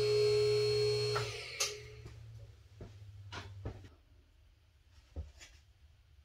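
MaxJax M6K lift's electric hydraulic pump motor running with a steady hum, cutting off about a second in. A few light clicks and knocks follow.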